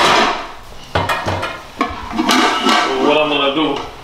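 Kitchen bowls and dishes being handled, with a noisy clatter at the start and sharp knocks about a second and nearly two seconds in. In the second half a person's voice wavers faintly in the background.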